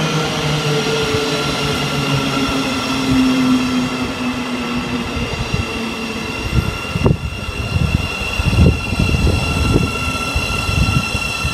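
A train running past on the line: a steady high-pitched whine over a rumble, with irregular low thumps coming in during the second half.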